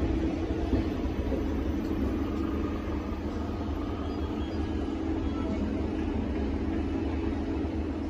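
Light rail tram running past at close range, a steady low rumble of its wheels on the track.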